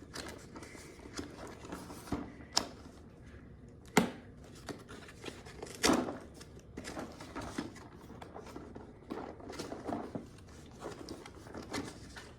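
Toy packaging being opened by hand: rustling with scattered sharp clicks and taps, the loudest about four and six seconds in.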